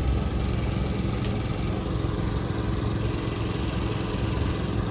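A motor engine running steadily with a continuous low hum.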